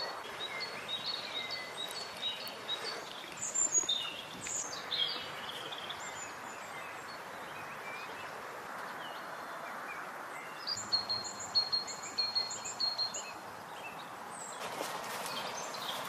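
Small songbirds chirping in quick repeated series of short high notes, over a steady background hiss. Scuffing noises begin near the end.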